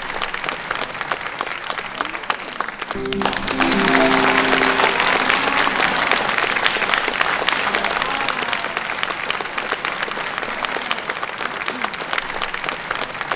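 Audience applauding with many hands, swelling louder about three to four seconds in. A brief held musical chord sounds about three seconds in.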